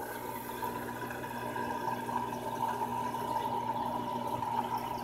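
Aquarium aeration running: a steady bubbling and trickle of water over a constant hum.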